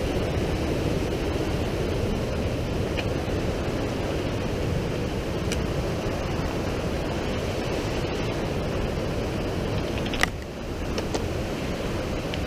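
Fast mountain stream cascading over granite rocks: a steady rush of water, with a sharp tap about ten seconds in.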